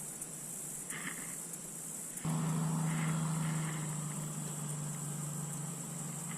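A motor vehicle's engine hum on the nearby road comes in suddenly about two seconds in, one steady low tone, then slowly fades. Over it, a steady high hiss and a few short chirps.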